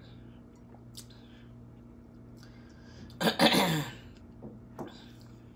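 A woman's single loud burp a little past three seconds in, rough and falling in pitch, lasting under a second.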